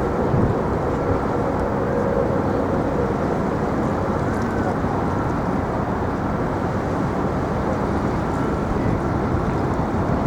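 Steady rumble of distant engines and traffic, with a humming engine tone that fades away over the first three seconds.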